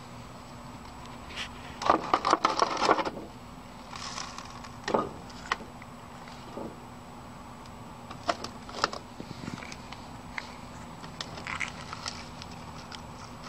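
Handling noise from a corroded, moldy 2-inch quad videotape reel and its plastic case: clicks, knocks and rattling of loose debris as gloved hands move and lift the reel, with a burst of clatter about two seconds in and scattered single taps later, over a faint steady hum.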